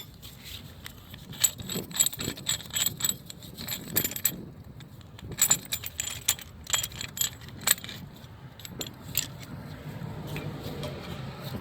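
Metal hand tools clinking and rattling: a 7/8 socket and wrench being handled and fitted, with a string of sharp, irregular metallic clicks that thin out after about eight seconds.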